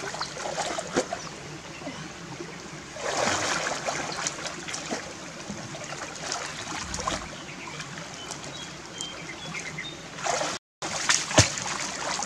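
Shallow rocky stream trickling, with water splashing and sloshing as hands grope and bodies wade through it. There is a louder stretch of splashing about three seconds in, and a few sharp splashes near the end.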